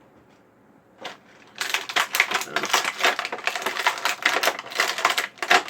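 Crackling and crinkling of plastic toy packaging being handled, a dense irregular run of sharp clicks that starts about a second and a half in after a single click.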